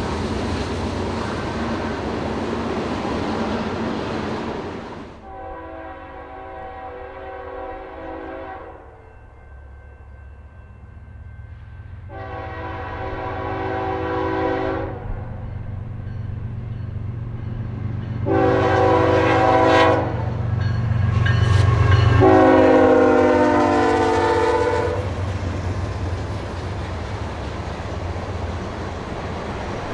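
Diesel freight locomotive's air horn sounding the grade-crossing signal, long, long, short, long, the last blast the loudest, over the low rumble of the approaching locomotives. Near the end, loaded tank cars roll past with steady wheel noise.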